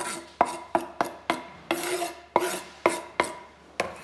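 A knife scraping and knocking diced onion off a tilted wooden cutting board into a bowl: about ten sharp knocks with scrapes between, two to three a second, each with a short metallic ring.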